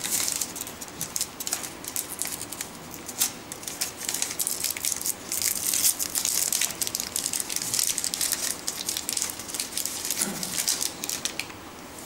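A disposable plastic dropper being unwrapped from its packet by hand: a dense, irregular run of crinkling and crackling from the wrapper.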